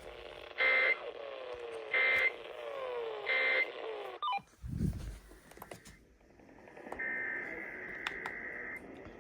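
Three short, loud bursts of Emergency Alert System digital data tones, a harsh buzzy warble, heard off-air over radio hiss with falling interference whistles. They come right after the test announcement, which is typical of the end-of-message code. About four seconds in there are a click and a low thump, and about seven seconds in a steady high tone sounds for roughly two seconds.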